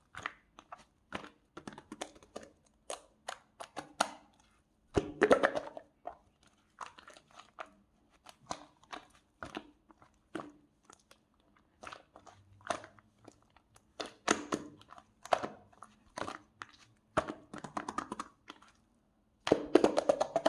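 Close-up crunching and chewing, a series of irregular crisp crackles with louder bursts about five seconds in and near the end.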